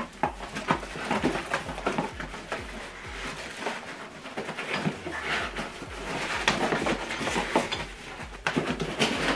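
Cardboard box and packing foam being handled and rummaged through, an irregular run of rustles, scrapes and light knocks as items are lifted out.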